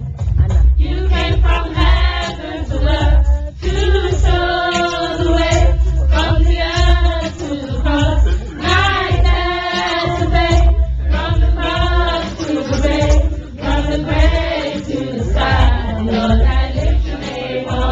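A choir of young voices singing together, with heavy low thudding underneath.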